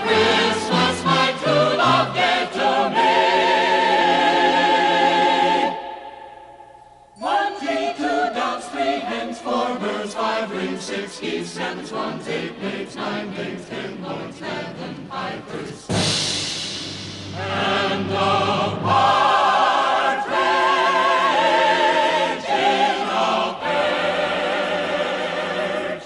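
Background choral music: a choir with accompaniment holds long notes that fade out about six seconds in. After a second's near-quiet the music starts again and carries on with more choral singing.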